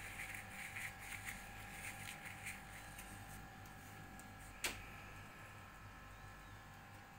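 Faint steady hum, with soft repeated scratchy sounds over the first three seconds and one sharp click a little past the middle.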